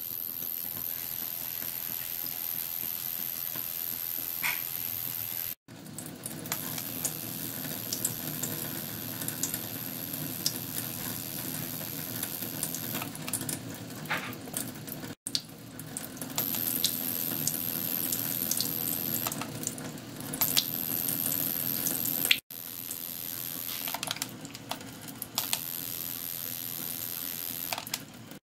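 A thin stream of water splashing and sizzling onto the face of a vibrating ultrasonic transducer disc, a flowing-water ultrasonic shower setup. A steady high-pitched whine sits over the water sound and comes and goes.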